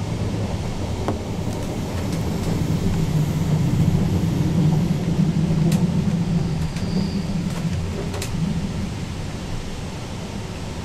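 Passenger train running, heard from inside the carriage: a steady low rumble of wheels on the rails, a little louder through the middle, with a few sharp clicks.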